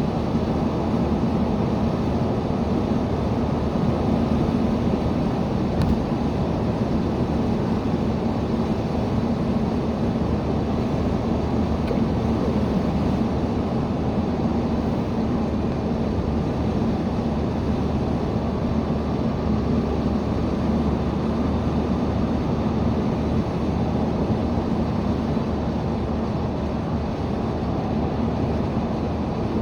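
Steady car cabin noise while driving: engine and road noise with a constant low hum that does not change much.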